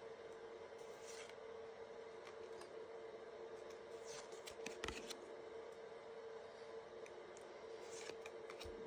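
Topps trading cards being handled and slid against one another: soft rustles and clicks come about a second in, again around four to five seconds, and near the end, over a steady low hum.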